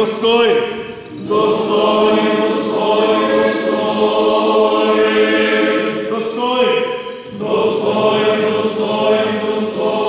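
Orthodox liturgical chant: voices singing long held notes, with short breaks for breath about a second in and again about seven seconds in.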